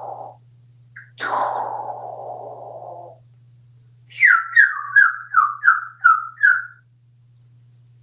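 African grey parrot whistling a run of seven short notes, each sliding down in pitch, about three a second. Before the whistles there is a harsher, noisier sound about a second in that lasts about two seconds and fades out.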